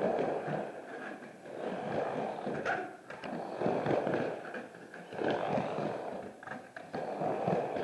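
Skateboard wheels rolling on the curved wall of a full-pipe ramp, the rumble swelling and fading with each pass back and forth, with a few light knocks.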